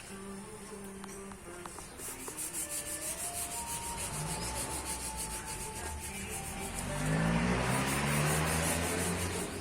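Hand sanding on a car body panel: sandpaper rubbed back and forth in quick, even strokes, growing louder near the end.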